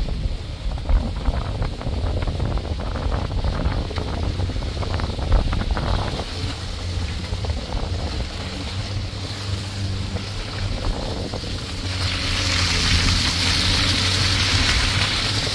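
Wind buffeting the microphone: a steady low rumble under a wash of noise, with scattered light clicks and knocks in the first half. About twelve seconds in, a brighter hiss swells.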